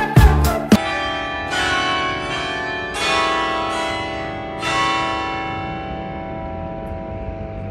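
Church bells ringing: a few heavy strikes, each left to ring on and slowly fade, after a music track with a drum beat cuts off under a second in.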